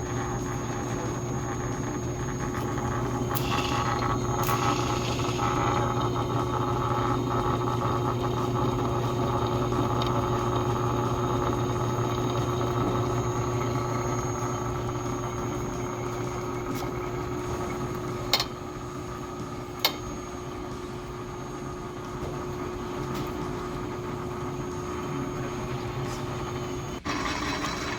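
Drill press motor running steadily with a constant hum while drilling a steel plate, with two sharp clicks about 18 and 20 seconds in.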